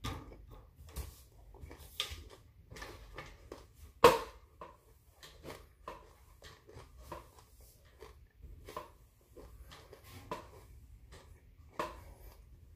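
A person chewing and crunching mouthfuls of broccoli florets: irregular wet crunches and mouth noises, with one louder sharp crunch about four seconds in.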